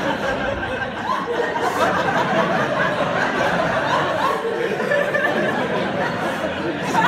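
Audience laughing, a steady mass of many people's laughter and chuckles, with some talk mixed in.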